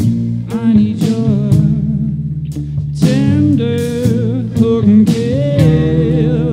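Rock band playing live: two electric guitars, an electric bass and a drum kit, with drum hits over sustained bass notes and a wavering, bending melody line coming in about three seconds in.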